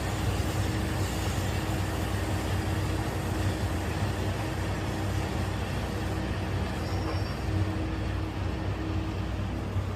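Steady city background noise with a constant low hum and no sudden events.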